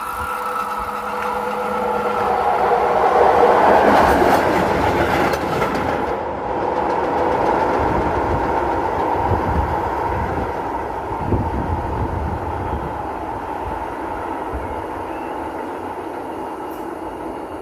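A railway work train passes with its wheels squealing on the rails: a steady high-pitched squeal at the start, the loudest noise about four seconds in, then rumbling and clatter of the wheels over the rails that slowly fades.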